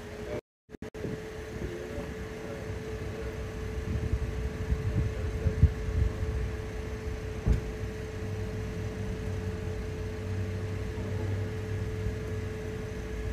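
Steady mechanical hum: one constant mid-pitched tone over a low rumble, like a running fan or ventilation unit. The audio cuts out completely for a moment about half a second in.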